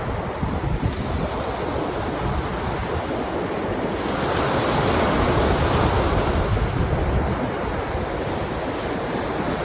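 Small freshwater lake waves washing over rocks and sand, a continuous wash that swells about halfway through and again near the end.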